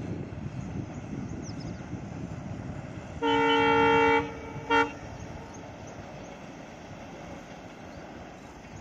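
Twin WDG3A diesel locomotives sounding their air horn: one long blast of about a second, then a short toot half a second later. A low engine rumble from the approaching locomotives runs underneath and fades.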